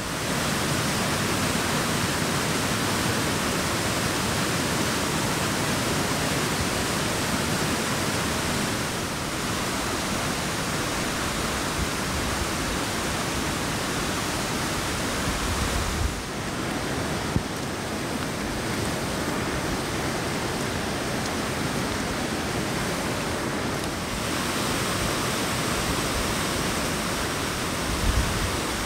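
Whitewater of a fast forest creek rushing and cascading over boulders: a steady, even rush of water whose tone shifts slightly a few times.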